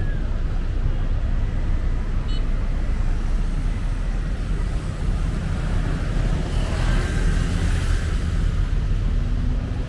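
Steady city road traffic: a continuous low rumble of cars and motorbikes passing on a busy road. A vehicle passes close about seven seconds in, and its tyre hiss swells and fades.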